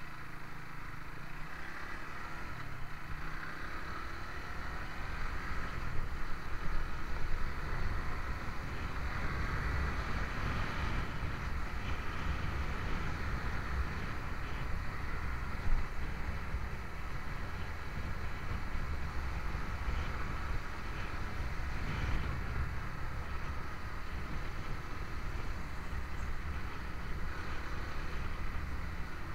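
Suzuki sport motorcycle riding along at road speed: the engine runs steadily under a heavy, constant rumble of wind on the microphone, with a few brief louder knocks or gusts.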